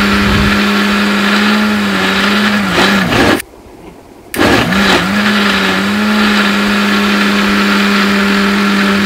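Electric mixer grinder blending a thick milk smoothie: the motor runs with a steady hum, winds down and stops about three seconds in, then starts again about a second later and runs on.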